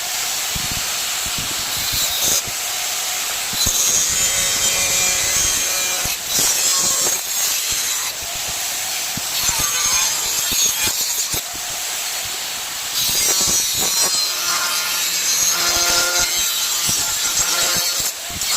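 Metalworking noise: a harsh, steady hissing and scraping with scattered clicks, of the kind made by welding or grinding steel.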